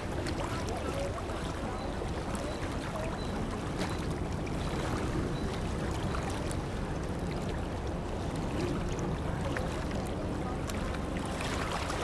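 Container ship passing on a river: a steady low rumble under the rushing, splashing water of its wake.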